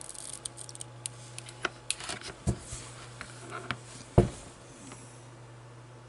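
Small N gauge model locomotive motor, newly fitted with a replacement armature and brushes, running on bench power with a steady low hum. Light clicks and taps of handling come over it, the loudest a sharp knock about four seconds in.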